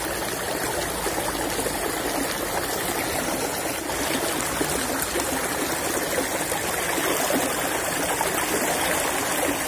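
Water of a small irrigation channel flowing steadily, a continuous even rush.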